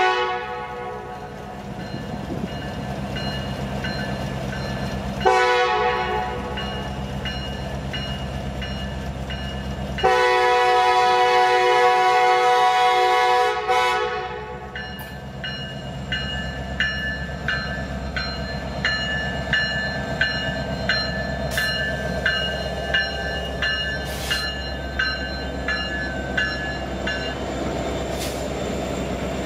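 Norfolk Southern freight locomotive's multi-note air horn blowing the tail of the grade-crossing signal: the end of a long blast, a short blast about five seconds in, then a long blast lasting about four seconds. Over the diesel's steady low rumble, the passing cars follow with rhythmic clicking of wheels over rail joints and intermittent wheel squeal.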